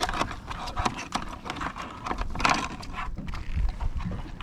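Scattered clicks and knocks of metal pliers and handling on a plastic bait board as a hook is worked free, over a low steady rumble.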